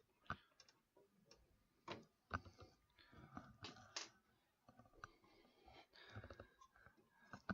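Faint, irregular clicks and small knocks of hands working on computer hardware inside a desktop PC case, with a few louder ticks scattered through.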